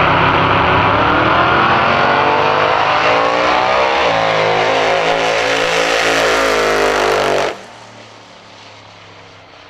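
Holden Commodore drag car's engine at full throttle down the strip, its pitch climbing, dipping once about four seconds in and climbing again. About seven and a half seconds in, the sound drops away abruptly to a much quieter level.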